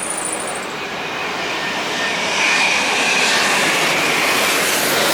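Boeing 787-10 airliner's jet engines during its landing, a broad rushing roar that grows louder about two seconds in, with a faint whine on top.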